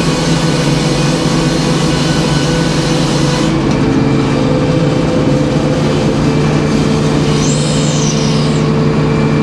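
Engine-driven circular sawmill running steadily, its large blade finishing a cut through a poplar board; the cutting hiss stops sharply about three and a half seconds in, leaving the engine and the blade spinning free.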